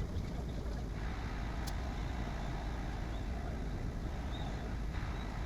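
Bambu Lab A1 3D printer running, a steady low rumble with one brief click about a second and a half in.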